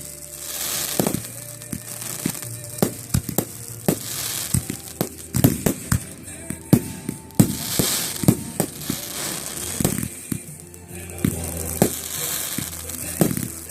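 Fireworks going off: a rapid string of sharp bangs and pops with bursts of crackling, over background music.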